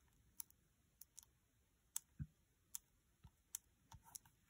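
Near silence with faint, scattered small clicks and ticks of fingertips pressing a cardstock muzzle piece into place.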